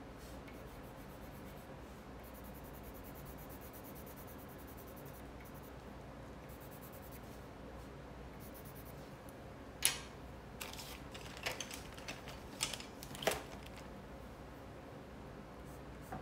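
Coloured pencil scratching on paper, faint at first, then a run of short, sharper scratches and clicks from about ten seconds in.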